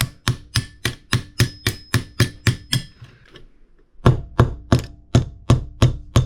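Small hammer tapping on a refrigerator fan motor's metal parts to knock them apart: a steady run of light metallic strikes, about four a second, pausing about three seconds in and then starting again.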